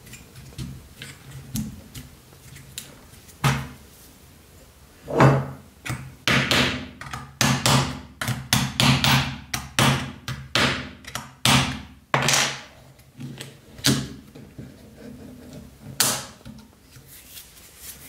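Small hammer tapping a metal pin punch on a Victorinox Cadet pocket knife while assembling it, a quick run of sharp metallic taps about two a second through the middle, with one more near the end.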